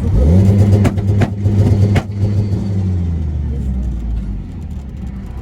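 Turbocharged car engine pulling hard under acceleration, heard from inside the cabin, with a few sharp exhaust pops. About two seconds in the throttle snaps shut and the engine winds down.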